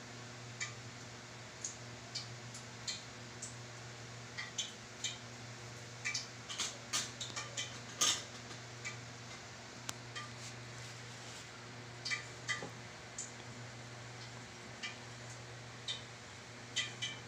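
Irregular light clicks and taps of a fork and ceramic plates and bowls being handled while chicken rolls are coated in flour and egg, busiest and loudest around the middle. A steady low hum runs underneath.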